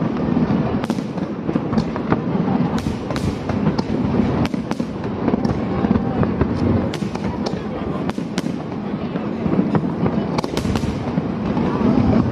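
Aerial fireworks going off continuously: many irregular sharp bangs and crackles over a steady, dense background.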